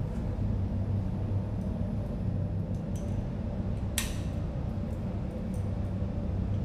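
A low, steady hum with faint scattered clicks, and one sharper click about four seconds in.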